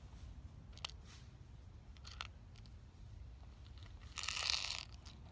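Camouflage clothing rustling close to the microphone: a few faint clicks, then one brief crunching rustle about four seconds in, lasting under a second.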